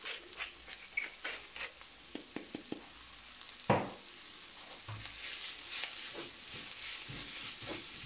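Wooden spoon stirring and scraping spinach and onions around a frying pan in quick short strokes, with a single louder knock about three and a half seconds in. The food sizzles in the pan, the sizzle growing louder from about five seconds in.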